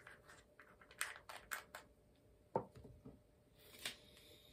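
Faint small clicks and taps of the dab spoon and the e-nail's concentrate tank being handled, several in quick succession about a second in and another near the middle. Near the end comes a brief rustle and knock as the glass bubbler is picked up.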